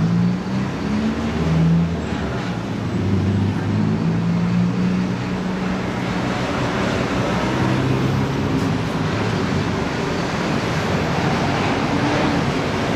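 Steady road-traffic rumble, with a low engine drone from passing vehicles that shifts in pitch in the first few seconds and then settles into an even wash of noise.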